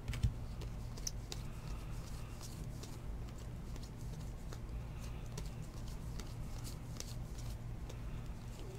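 Baseball trading cards being flipped through by hand: soft swishes and scattered light ticks as card after card slides off the stack. A steady low hum sits underneath, and there is one short knock about a quarter second in.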